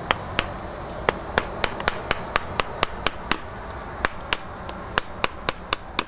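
Mallet driving a wood chisel into the trunk of a standing tree: sharp, quick knocks about three or four a second, in runs broken by two short pauses.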